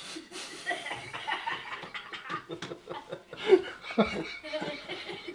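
Men laughing and chuckling in short bursts, with a louder laugh about three and a half seconds in.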